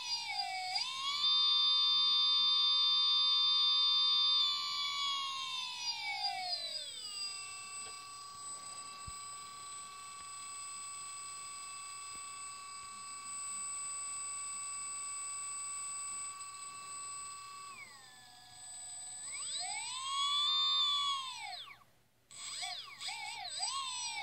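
Sunnysky V2216-15 650kv brushless outrunner motor running without a propeller, driven by an RC speed controller: a high electric whine whose pitch follows the throttle. It holds high, glides down about five seconds in and holds lower, dips again, then rises and falls in a quick arc, cuts out for a moment and wavers near the end.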